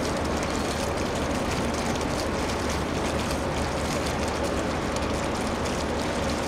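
Steady, even background noise with a constant low hum: the ambient sound of the event venue.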